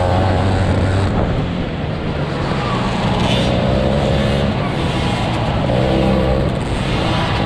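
Engine of a 50cc two-stroke youth motocross bike racing, heard close up from on the bike: the revs climb and fall with the throttle, easing off about two seconds in, then rising again in several pulls.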